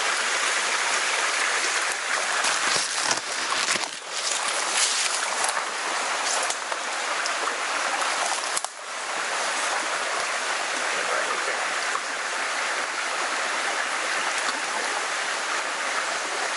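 Small forest creek running over shallows: a steady rush of water, with a few brief rustles and knocks about two to six seconds in.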